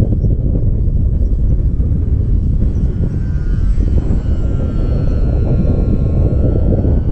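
Heavy wind rumbling on the microphone. About two and a half seconds in, the thin whine of the RC Night Walrus glider's motor and propeller comes in, its pitch wavering slightly.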